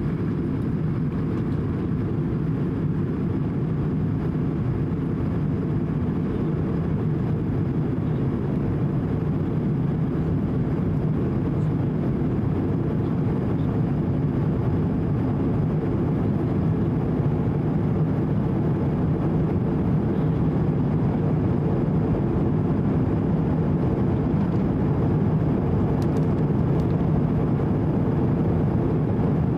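Steady cabin noise of a SWISS Airbus A220-100 in flight, heard inside the cabin: a low, even rush of engine and airflow noise with a faint high whine held throughout.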